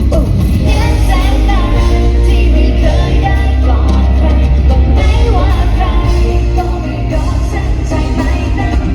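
Live pop music played loud through a concert hall's speakers, with a strong bass and beat and singing over it.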